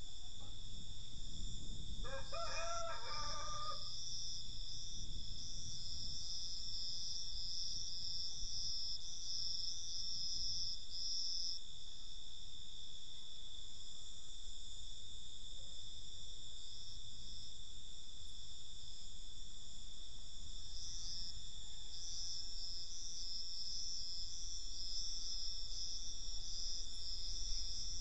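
A rooster crows once, about two seconds in, over crickets trilling in rapid pulses; the trilling stops about halfway through and starts again near the end.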